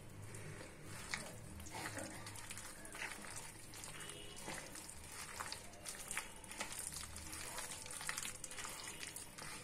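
A hand kneading and squeezing thick, wet cabbage-and-flour pakora batter in a plastic bowl, making faint, irregular wet squishes and small clicks.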